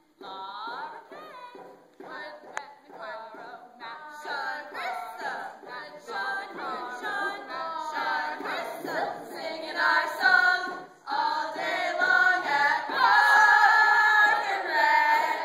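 A group of girls singing a cappella, several voices together, growing louder and fuller for the last couple of seconds.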